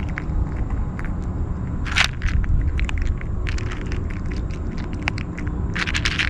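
Kitten crunching dry kibble, a run of quick crunching clicks, with two louder crunching bursts about two seconds in and near the end, over a low steady rumble.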